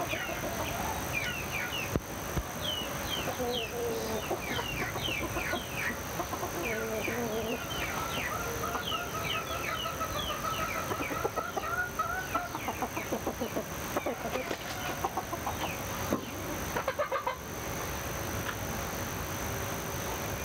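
Chickens clucking among many small birds chirping in quick, short downward notes.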